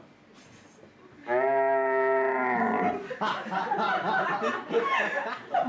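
A recorded stag's roar played back over the PA: one long, steady bellow about a second and a half in, dropping slightly in pitch as it ends. The audience then breaks into laughter and chatter.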